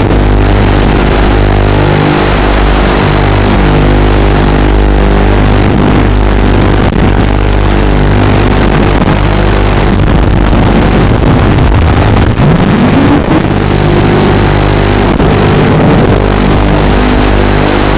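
FPV quadcopter's electric motors and propellers buzzing continuously, several tones shifting with the throttle and one rising sharply in pitch about two-thirds of the way through.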